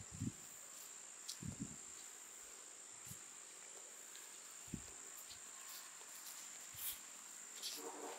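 Steady high-pitched drone of insects in the grass, with a few soft low thumps every second or two.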